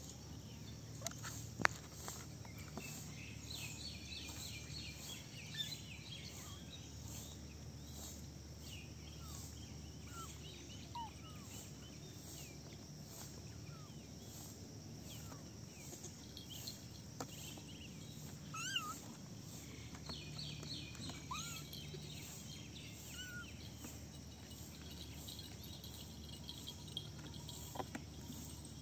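Outdoor ambience of steady, rhythmic insect chirping with occasional fast trills, and scattered short, high mews from the kittens. A single sharp click comes about two seconds in.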